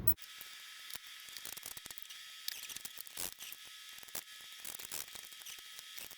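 Ratchet wrench clicking in irregular runs as it cranks the center bolt of a steering wheel puller, pressing the steering wheel off its splined column.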